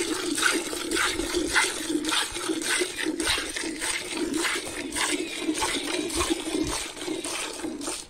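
Hand milking of a cow: streams of milk squirting into a metal pail of frothy milk, in a steady rhythm of about two squirts a second from alternating hands.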